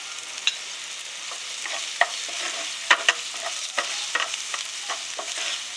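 Chopped onion, garlic and green chillies sizzling in oil in a frying pan, stirred with a wooden spatula that knocks and scrapes against the pan at irregular moments, loudest about two and three seconds in.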